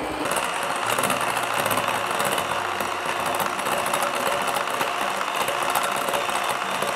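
Electric hand mixer running steadily, its twin wire beaters whisking a thin egg-and-jam batter in a glass bowl.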